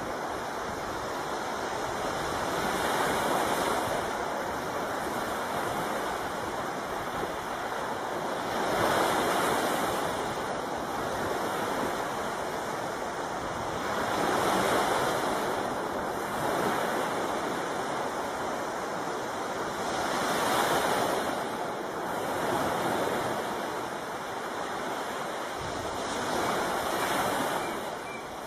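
Sea water rushing and breaking past a sailing yacht's hull in choppy open ocean, swelling and falling every few seconds as waves pass.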